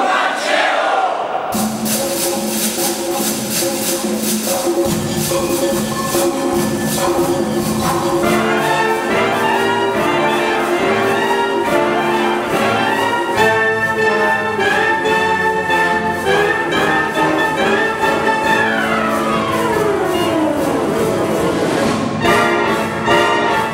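A concert wind band starts a piece: clarinets, flutes, saxophones and brass over a steady beat. About three-quarters through, a long falling run, then the band carries on.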